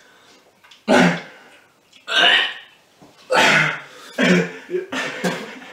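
A man gagging and retching over and over, about five loud heaves roughly a second apart, as he struggles to get down a revolting milkshake.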